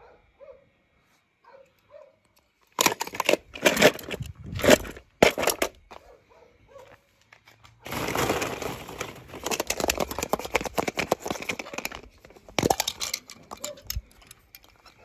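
Hollow plastic ball-pit balls rustling and clacking together as a hand rummages through them. There are a few short bursts first, then a dense clatter lasting about four seconds, then a single sharp click near the end.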